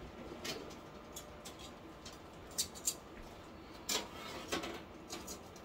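Scattered light clicks and knocks of kitchen items being handled, with the sharpest click about four seconds in as a hand works at a countertop toaster oven.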